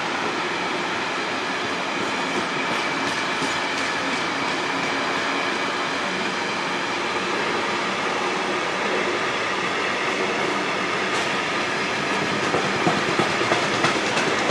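Loaded yellow ballast wagons of an engineering train rolling past close by, a steady rumble and rattle of wheels on rail. Sharper clatter of wheels over rail joints comes near the end.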